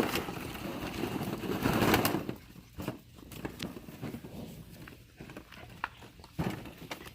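Plastic ball-pit balls rustling and crackling as puppies play in them and bite the thin plastic. Loud for the first two seconds, then quieter with scattered clicks and knocks.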